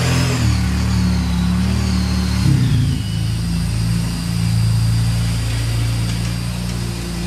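Kawasaki Brute Force 750 ATV's V-twin engine running as it is ridden around, its pitch shifting a few times with the throttle. A faint high whine glides up and down above the engine note.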